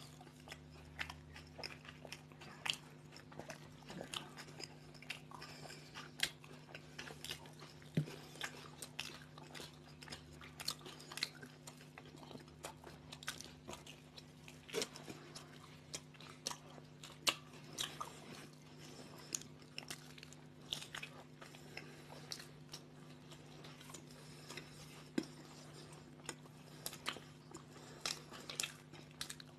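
Two people biting into and chewing toasted bread sandwiches: irregular crunches and wet mouth clicks, close to the microphone, over a faint steady hum.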